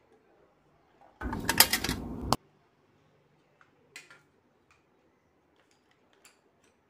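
A burst of rapid clicking, like typing, lasting about a second and starting and stopping abruptly. It is followed by a few faint, scattered clicks and taps.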